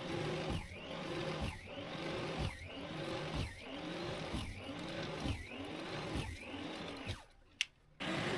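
Small motor cycling steadily, its pitch rising and falling about once a second, then cutting off suddenly about seven seconds in.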